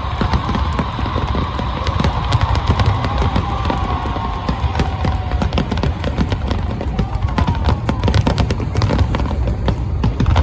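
Fireworks going off in a dense display: many sharp cracks and crackles in quick succession over a continuous deep rumble of booms.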